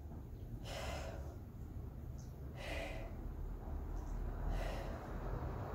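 A woman's breaths through the mouth, three short puffs about two seconds apart, taken in time with repeated side-lying leg lifts, over a low steady rumble.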